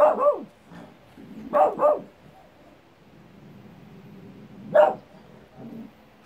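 Small wiry-coated terrier-type dog barking in short sharp barks: a double bark at the start, another pair about a second and a half in, a single bark near five seconds and a softer one just after. It is barking at its own echo.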